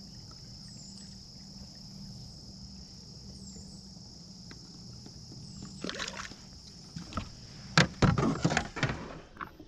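Steady high chirring of crickets or other insects, then loud knocks and clatter with some sloshing about six seconds in and again near the end, as a fish-measuring board is handled and lifted in a kayak.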